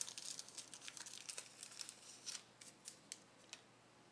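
Faint crinkling and quick ticks of trading cards and a clear plastic card sleeve being handled. The sounds thin out near the end.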